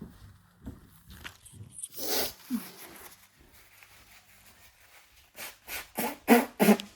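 Sneezing: one sharp sneeze about two seconds in, then a quick run of four or five short sneezes near the end, the last two the loudest.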